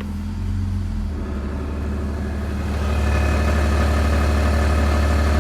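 BMW M54 inline-six idling in Drive with the air conditioning on: the engine takes up load about a second in, and from about three seconds in a steady buzzing rattle joins the engine sound. It is the knocking noise the mechanic traces to a cracked flexplate between the engine and the automatic gearbox.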